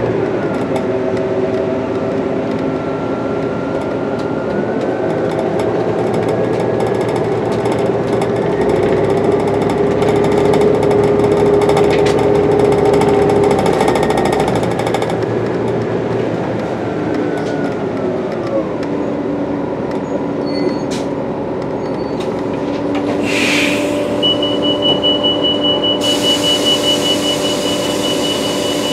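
Inside a New Flyer D60LFR articulated bus: its Cummins ISL 8.9L diesel and Allison B500R automatic transmission running under way, with a whine that climbs slowly and then drops away about two-thirds of the way in as the bus slows. Near the end come a short hiss and a high, steady beeping tone.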